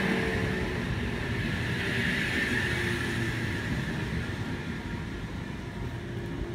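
Sydney Trains Oscar (H-set) electric train moving along the platform close by, its motor whine falling in pitch over the first couple of seconds, then settling into a steadier, quieter running noise.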